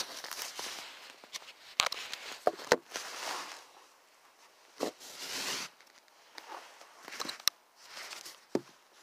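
Phone microphone rubbing and bumping against a jacket and a basketball: cloth rustling in uneven swells, broken by several sharp clicks and knocks.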